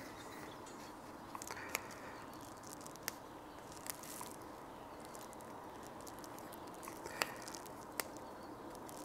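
Fingers pressing and smoothing a vinyl skin onto a laptop's palm rest and keyboard deck: about half a dozen faint, sharp clicks and taps, scattered through, with a brief rustle of the vinyl about four seconds in, over a low steady hiss.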